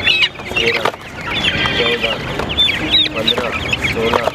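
Young chickens crowded in a box, cheeping and clucking continuously with many high calls overlapping and some lower clucks, while birds are grabbed by the legs and lifted out.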